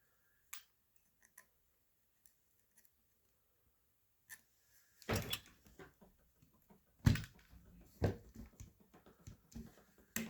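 Small clicks and knocks of hand tools and metal parts being worked on a paintball marker's receiver while its cotter pins are freed. A few faint ticks, then a busier run of knocks starting about halfway, the loudest about seven seconds in.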